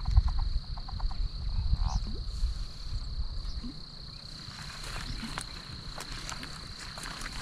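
A steady high-pitched chorus of frogs calling at a pond, with a short run of quick pulsed croaks at the start. A low rumble on the microphone is the loudest sound in the first two seconds or so and then fades.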